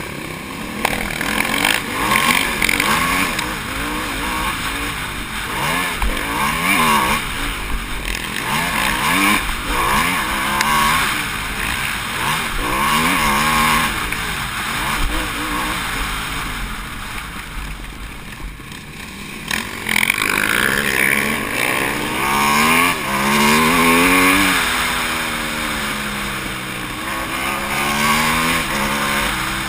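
On-board sound of an Aprilia SXV supermoto's V-twin engine at race pace, revving up and dropping back again and again as the rider accelerates and shuts off for turns. The revs sag briefly about eighteen seconds in, then climb hard through a run of quick rising and falling sweeps.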